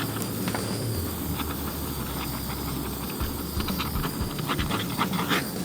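Steady hissing rush of a heat tool shrinking heat-shrink tubing over spliced wires, with a few light clicks of handling in the second half.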